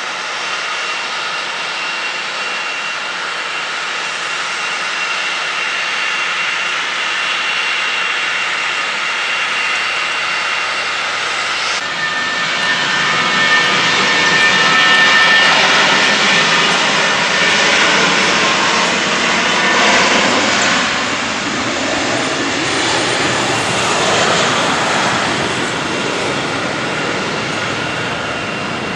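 Aircraft turbine engines running steadily, a constant whine with high tones. About twelve seconds in the sound changes abruptly, fuller and with a new higher tone.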